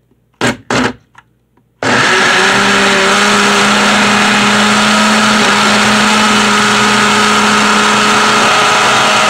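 Two sharp clicks, then a Ninja blender's motor starts abruptly about two seconds in and runs loud and steady, pulverizing raw potato chunks in liquid into a smooth slurry.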